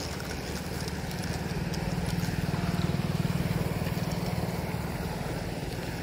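Fishing reel ticking rapidly and steadily as line runs through it, swelling a little in the middle and easing off again.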